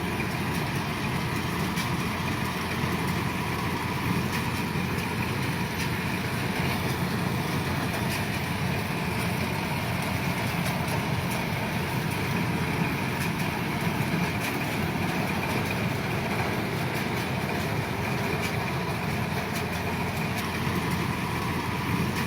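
Kubota DC-105 combine harvester's diesel engine running steadily, with a faint whine on top.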